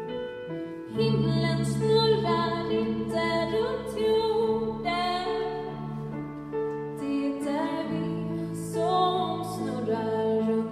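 A female soloist sings with vibrato over an orchestra accompaniment. The voice comes in louder about a second in.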